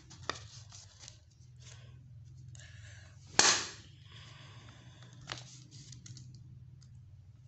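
Folded paper banger swung and snapped open, giving one sharp loud crack about three and a half seconds in. Fainter paper clicks and rustles come before and after it.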